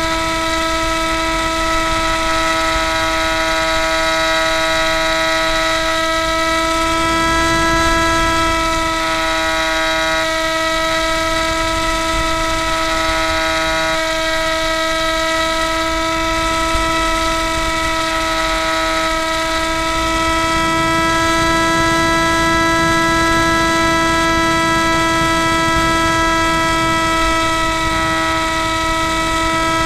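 Spyhawk RC plane's electric motor and propeller whining at a steady pitch in cruising flight, heard close up through the onboard keychain camera, with wind rush over the airframe swelling at times.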